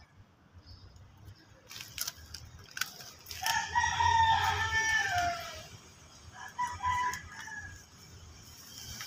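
A rooster crows: one long call starting about three and a half seconds in that falls in pitch at its end, followed a little later by a shorter second call. A few sharp clicks come before the crow.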